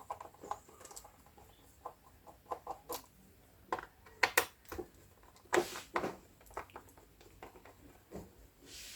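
Scattered small clicks and taps of a screwdriver and fingers working screws out of a laptop's plastic bottom cover, with a short scrape a little past halfway.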